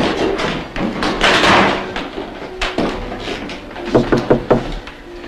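An apartment door bangs shut about a second in. Near the end comes a quick series of about four knocks on the door.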